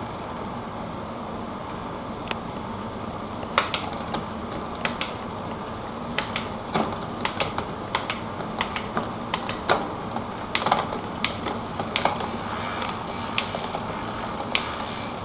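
A SRAM 11-speed drivetrain running with a OneUp 44-tooth cog on its cassette: the chain runs with a steady whir while the rear derailleur is shifted quickly through the gears. From about three and a half seconds in come many sharp, irregular clicks as the shifter indexes and the chain jumps from cog to cog, a test of the derailleur's cable tension after the barrel adjuster was turned.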